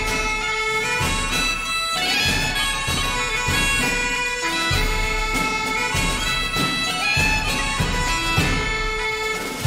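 Background music: a pitched melody over a steady low drone, with some percussion strokes.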